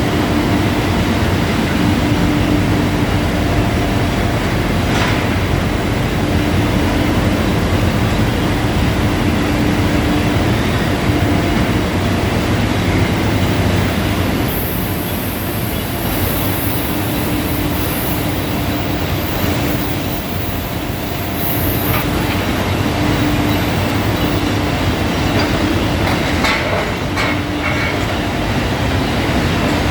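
Steel rebar rolling mill machinery running with a loud, steady mechanical din and a low hum. A high hiss joins for about seven seconds midway.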